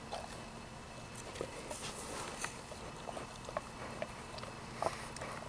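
Malamute puppy mouthing and nosing a small piece of raw rhubarb: scattered soft wet mouth clicks and sniffs.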